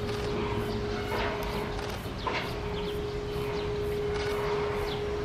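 Outdoor background sound: a steady hum over a low rumble, with short high chirps at a quick, irregular rate.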